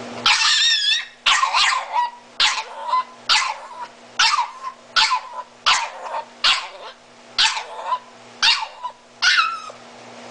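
Miniature Italian Greyhound giving a run of about a dozen short, high-pitched yelping cries, roughly one a second, the pitch wavering within each; the first cry is the longest. This is the dog's 'mommy' scream.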